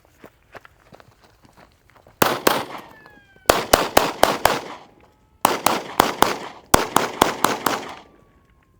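AR-15 rifle fired rapidly in semi-automatic strings: a shot or two, then three quick strings of about five shots each with short pauses between. The rifle is cycling reliably.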